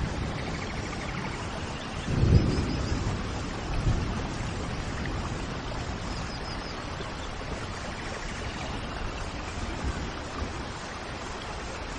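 Steady rain, with faint bird chirps twice and a brief low rumble about two seconds in.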